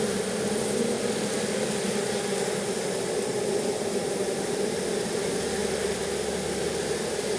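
Honeybees buzzing in a steady hum around an opened hive as its frames are inspected.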